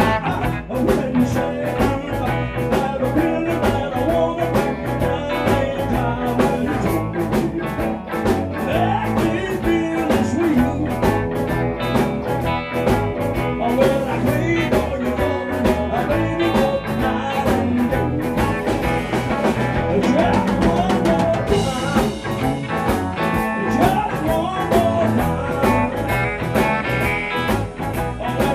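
Live rock band playing: electric guitars, electric bass and drum kit, with a lead guitar line bending in pitch over a steady drum beat.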